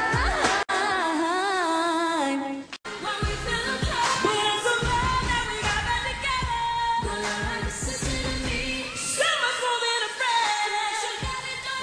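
A woman sings a held line with wide vibrato. The sound cuts off abruptly about three seconds in, and a pop song follows: a female lead vocal over a backing track with a steady beat.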